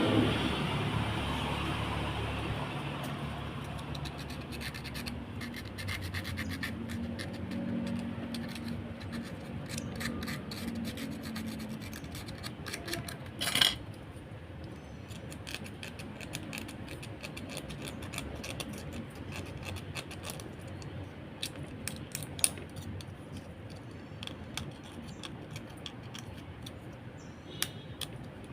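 Scratching and rubbing of hands working on small blender parts, with scattered small clicks and one sharp knock about halfway through. A louder sound at the start fades away over the first few seconds.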